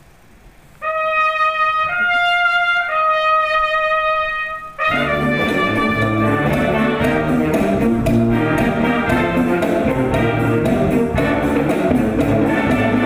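Soundtrack music: a solo brass instrument plays three long held notes, then a full ensemble with a steady beat comes in about five seconds in.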